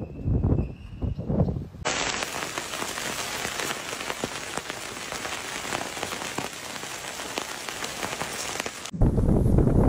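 Dense, steady patter of falling drops or particles on hard surfaces, like rain, with fine ticks throughout. It starts suddenly about two seconds in and stops abruptly near the end. Before it, low gusts of wind buffet the microphone.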